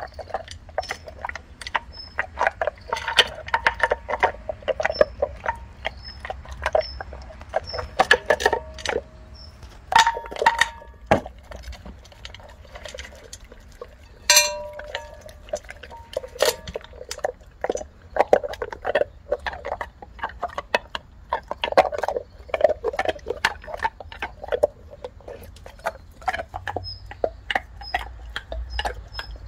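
Labrador retriever eating dry kibble and treats from a stainless steel bowl: steady crunching and chewing, with kibble and teeth clinking against the metal bowl. One strike about fourteen seconds in makes the bowl ring. Near the end it changes to gnawing on a bone.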